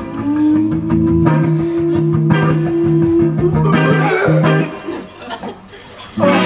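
Electric guitar playing held, sustained notes, with a bass line under them. The playing drops away about five seconds in, and fuller music comes back in just before the end.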